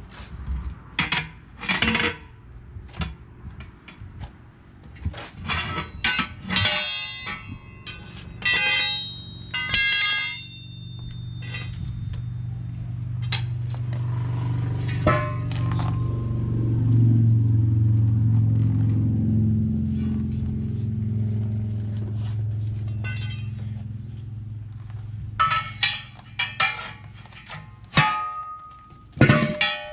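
Steel tire irons clanking and ringing against a steel truck wheel rim while a semi-truck tire is pried off it: a string of sharp metallic strikes. In the middle a low drone swells for about ten seconds and fades, and the clanking starts again near the end.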